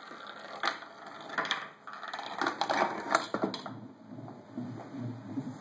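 A ball rolling and clacking down a zigzag of wooden ramps in a homemade Rube Goldberg machine, knocking against the wooden stops and parts. The clatter is densest just before it stops, about four seconds in, and a low rumble follows.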